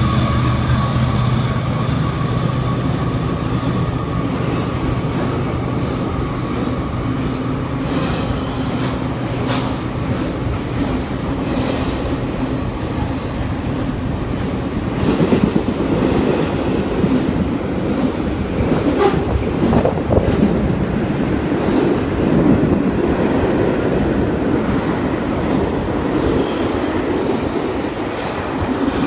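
Freight train passing below. The diesel locomotive's steady engine hum fades over the first several seconds, then double-stack container cars roll past with wheels clicking and rumbling on the rails, louder from about halfway through.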